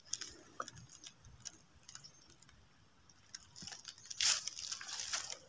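Footsteps crunching and rustling in dry leaf litter and twigs on a forest floor: a few faint crackles at first, then denser, louder crunching from about three and a half seconds in.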